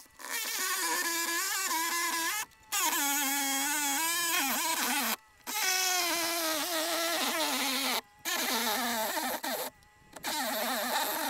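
Handheld circular saw running and cutting through wood siding, its motor pitch wavering up and down under load. The sound breaks off abruptly four times, about 2.5, 5, 8 and 10 seconds in.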